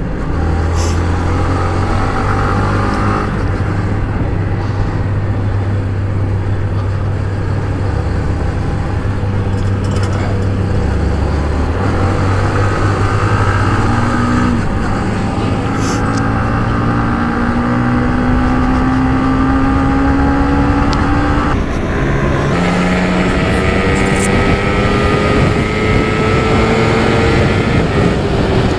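Yamaha MT-15's single-cylinder engine pulling under way. Its note climbs steadily as the bike accelerates and drops back at gear changes, most clearly about twenty-two seconds in. Constant road and wind noise runs underneath.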